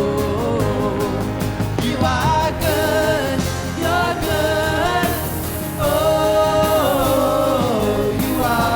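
Live worship band playing, with sung vocals over the instruments.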